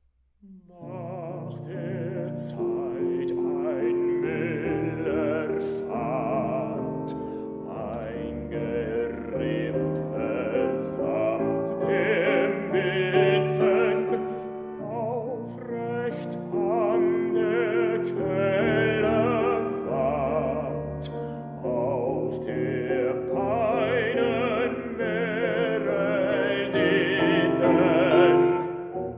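A baritone singing a German art song in full operatic voice with wide vibrato, accompanied by a grand piano. Voice and piano come in together about a second in after a silence and break off sharply near the end.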